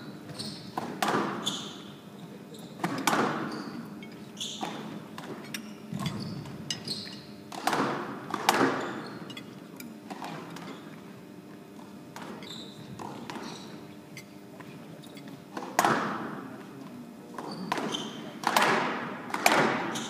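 Squash ball being struck by rackets and hitting the court walls in a rally: sharp, echoing thwacks at irregular intervals, with a quieter stretch in the middle. Short high squeaks of players' shoes on the court floor come between the shots.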